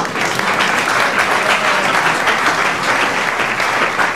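Theatre audience applauding: many hands clapping in a steady, dense patter.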